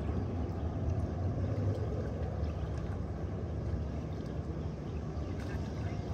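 Steady low rumbling noise, even throughout with no distinct events.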